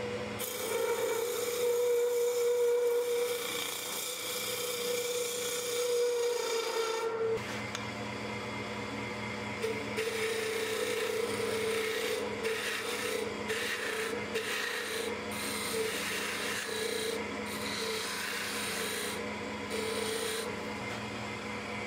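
A turning tool scrapes into the end of a spinning arbutus blank on a wood lathe, cutting a tenon. The steady scraping hiss of the cut rides over the lathe's steady hum, breaks off briefly about seven seconds in, and then goes on.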